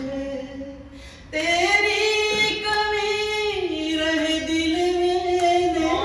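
A woman singing an Urdu poem in tarannum, unaccompanied. She breaks off briefly about a second in, then holds long, slowly shifting notes.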